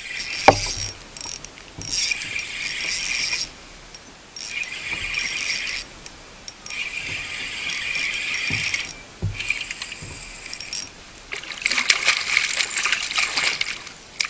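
Fishing reel buzzing in repeated bursts of a second or two with short pauses between, as line is wound in against a hooked fish on a bent rod. A single sharp knock comes about half a second in.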